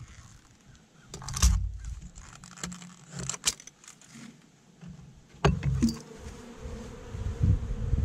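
Honeybees buzzing at a hive entrance, the buzz swelling from about five and a half seconds in as bees stream out of the reopened hive. A few sharp clattering knocks come about one and a half, three and a half and five and a half seconds in.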